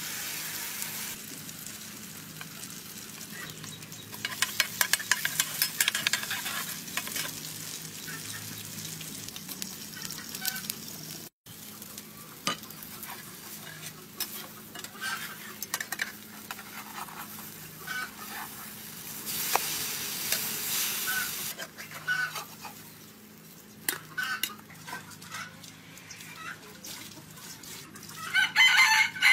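Egg and climbing wattle (cha-om) batter sizzling and frying in hot oil in a frying pan, with metal spatula scrapes and clicks against the pan. Chickens cluck in the background, loudest just before the end.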